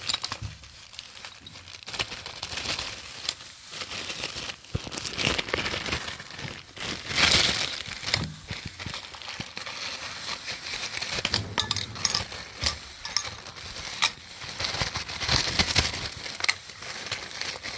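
Packaging crinkling and rustling as items are handled and taken out, with scattered small clinks and knocks.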